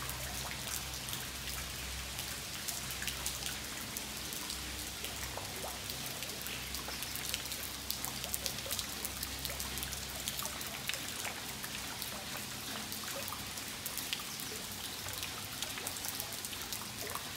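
Steady rain falling on stone paving and roof tiles, a dense hiss made of many small individual drop hits.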